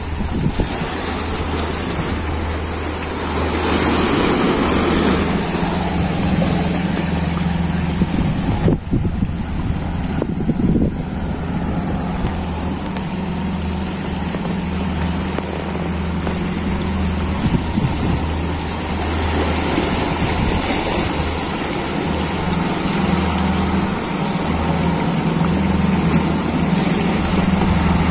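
Small waves washing and lapping over rocks and sand, with wind buffeting the microphone and a steady low hum underneath.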